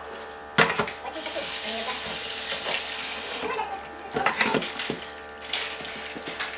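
Kitchen tap running into a sink for about two seconds, starting just after a sharp knock, then knocks and clatter in the sink.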